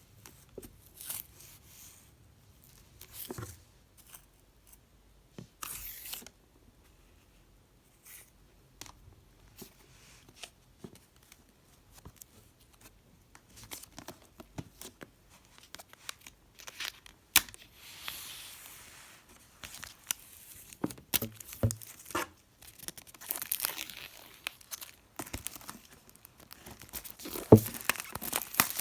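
Packaging being opened by hand: plastic wrap tearing and crinkling, with scattered taps and clicks of handling. It grows busier and louder in the last several seconds.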